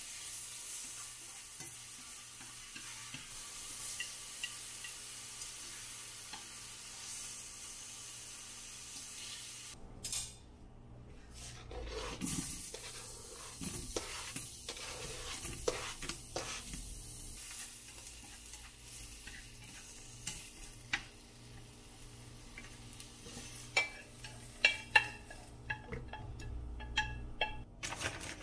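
Vegetables sizzling in a hot frying pan while being stirred with chopsticks, a steady hiss. After about ten seconds the hiss gives way to scraping and knocking as zucchini slices are pushed off a cutting board into the pan. A row of sharp clicks and knocks comes near the end.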